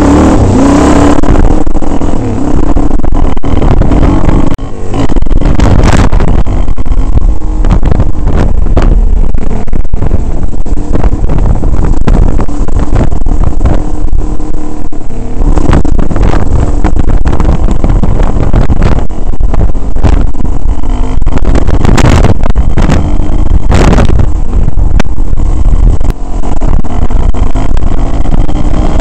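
Off-road motorcycle engine running while riding a rough gravel track, recorded very loud on the bike's camera, with frequent sharp knocks and thumps.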